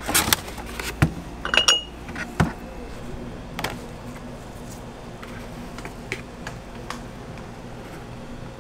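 Handling noise from a chest freezer: plastic bags and containers rustle and knock as a large plastic ice cream tub is pulled out and set down on a counter, a quick cluster of clattering knocks in the first couple of seconds. A few lighter knocks and scrapes follow as a hand works inside the tub.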